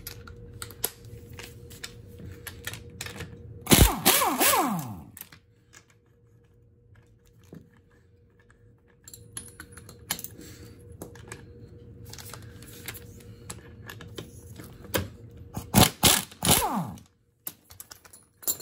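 Pneumatic air ratchet running in two short bursts, about 4 s and 16 s in, each falling in pitch as it winds down, while it loosens the bolt holding the bracket on the old strut. Light metal clicks from the socket and tools in between.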